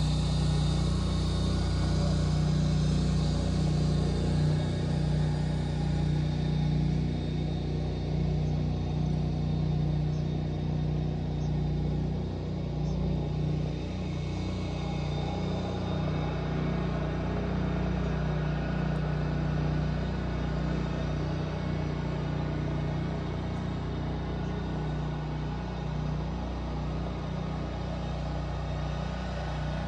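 A steady, low motor hum with an unchanging pitch, like an engine running at idle.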